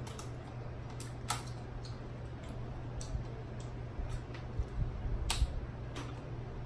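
Kitchen scissors snipping through crab-leg shells: scattered sharp cracks and clicks at irregular intervals, over a steady low hum.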